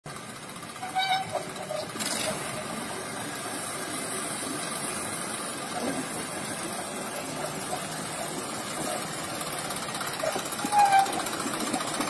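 Rail-mounted tractor's diesel engine running steadily as it hauls a loaded ballast wagon along the track, growing a little louder near the end as it comes closer. Brief high tones sound about a second in and again near the end.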